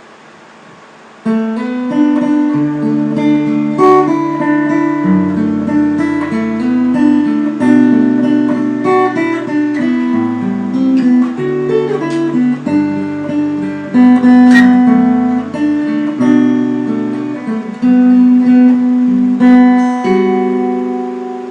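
Fender guitar played as a sound test: chords picked out note by note over changing bass notes, each note left ringing. The playing starts about a second in.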